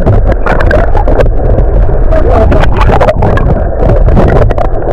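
Loud wind rumble buffeting the microphone, with muffled voices faintly underneath.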